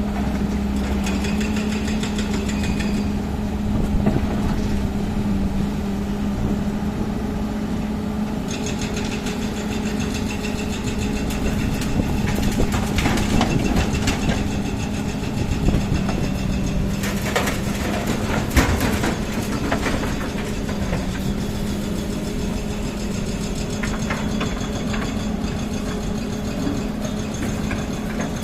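An engine running steadily at a constant pitch. A high whine comes and goes over it, and there are a few sharp knocks about two-thirds of the way through.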